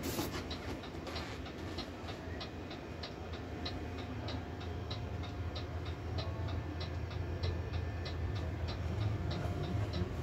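Steady, rapid mechanical ticking, about three and a half ticks a second, over a low steady hum, with a short knock at the very start.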